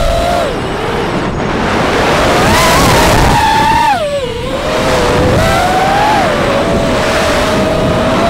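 Brushless motors and propellers of a GEPRC Leopard LX6 FPV quadcopter whining, picked up by the onboard camera's microphone, with wind rushing past. The pitch wanders with the throttle, climbs, then drops steeply about four seconds in as the throttle comes off, and rises again.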